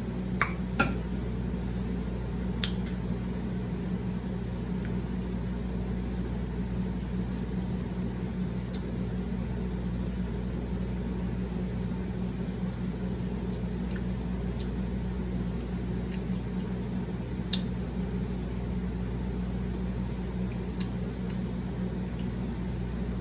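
A steady low hum with a few short, sharp clicks and smacks of eating over it: two near the start, one about three seconds in, and a couple more near the end.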